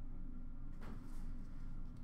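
A steady low hum of room tone, with a faint soft tap of trading cards being handled a little before a second in.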